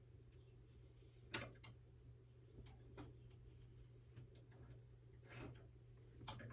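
Near silence with a few faint, scattered clicks and light knocks, five or so spread unevenly through it.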